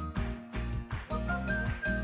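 Background music with a steady beat and a bright, held melody line.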